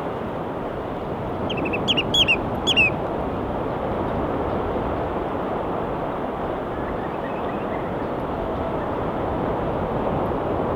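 Steady wash of ocean waves, with a quick string of short, sharp seagull calls about two seconds in.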